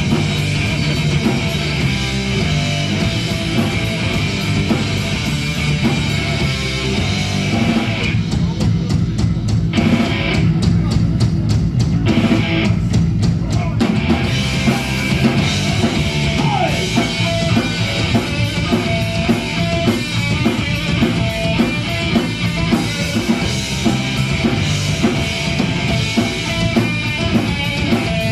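Live rock band playing loud, with electric guitar and a drum kit. About a third of the way in, the cymbals drop out for a few seconds.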